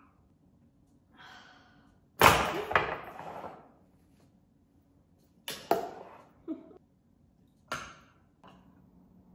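Kitchen clatter as leftover curry is reheated: a string of sharp knocks and clinks from a pot, a glass food container and a spoon being handled on a stone worktop and induction hob. The loudest knock comes about two seconds in, with a few more scattered through the rest.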